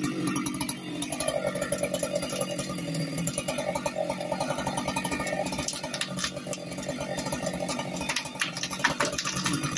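Chainsaw running under load, making the felling cut through the base of a tall limbed tree trunk as the trunk starts to tip.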